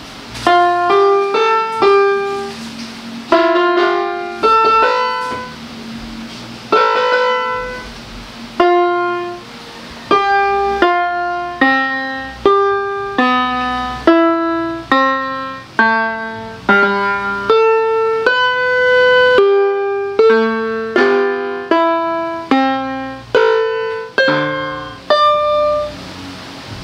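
GL-400 electronic keyboard playing a simple melody through its built-in speaker, single notes one at a time, each struck and fading, with a couple of brief pauses.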